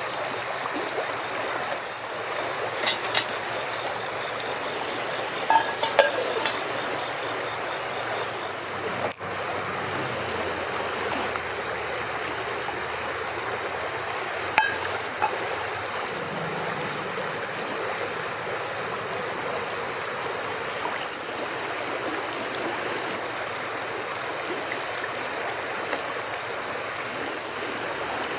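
Steady rushing of flowing water, like a stream, with a few short sharp clicks and knocks over it.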